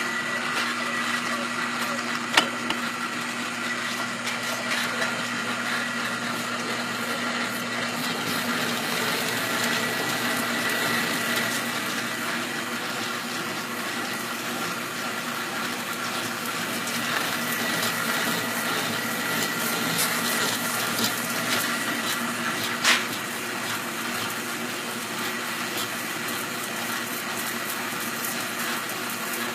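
Canedy-Otto camelback drill press running steadily under power feed, a 3/4-inch bit drilling through a steering arm, with a constant gear whine. A couple of sharp clicks are heard, one a couple of seconds in and one near the end.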